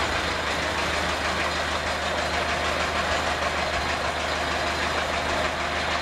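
Sawmill band saw running steadily, a low hum under an even hiss.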